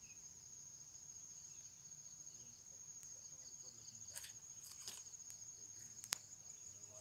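Faint, steady high-pitched insect trilling from the surrounding tropical forest, pulsing rapidly without a break. A few soft clicks come in the second half, with one sharp click about six seconds in.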